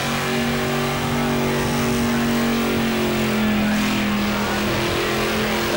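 Supercharged engine of a pink Holden Torana held at steady high revs during a burnout, its rear tyres spinning in smoke with a constant hiss. The engine note sags slightly about halfway through, then holds again.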